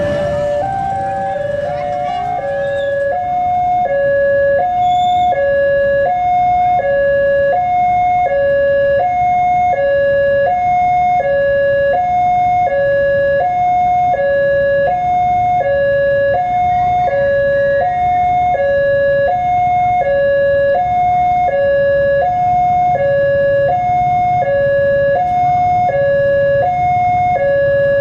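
Railway level-crossing warning alarm: an electronic two-tone signal alternating evenly high and low, about one high-low pair a second, warning that a train is approaching the crossing.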